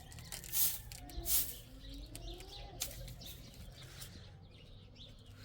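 A bird, likely a pigeon or dove, cooing in low calls that glide up and down, with a few sharp clicks or taps, the loudest about half a second and just over a second in, over a steady low hum.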